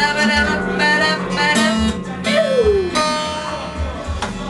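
Steel-string acoustic guitar strummed in a steady rhythm, with a woman singing along; her voice slides down in pitch about halfway through.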